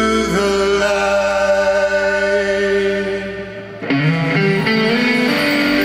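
Live rock band with singing and electric guitar holding a sustained chord that dies away about three and a half seconds in; just before four seconds the electric guitar starts playing again.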